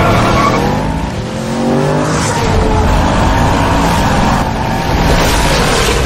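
Mercedes-Benz SLS AMG's 6.2-litre V8 revving hard under acceleration, its pitch climbing over the first two seconds, dropping, then rising and falling again.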